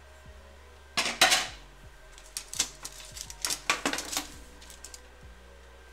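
Wire cooling rack and foil-lined baking sheet clattering as they are picked up with an oven mitt and moved: two loud clatters about a second in, then a run of lighter clinks and rattles.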